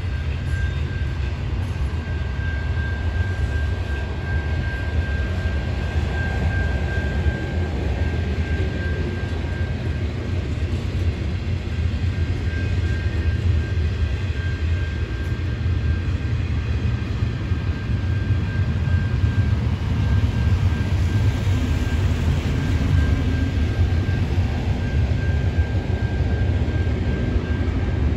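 Double-stack container freight cars rolling past on the rails: a steady low rumble of wheels and cars, with a thin, steady high-pitched whine running over it. The sound grows slightly louder in the second half.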